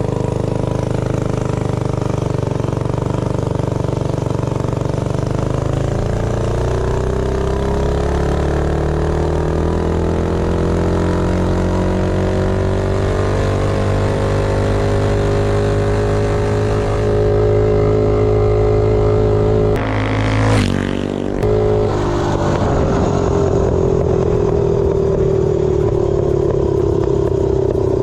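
Tillotson 212 single-cylinder four-stroke engine on a Doodlebug minibike at full throttle, accelerating from a near standstill. Its pitch rises over the first several seconds, then holds high and steady at top speed, about 55 mph. The pitch dips briefly about two-thirds of the way through, then the engine pulls on again.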